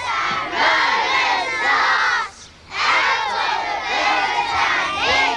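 A large group of children chanting a rhyme together, spoken as two loud phrases with a short break about two seconds in.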